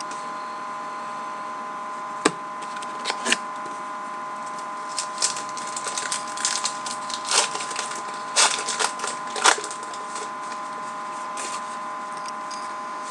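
Cardboard trading cards being handled and flipped through: scattered dry clicks and rustles, thickest in the middle, over a steady hum.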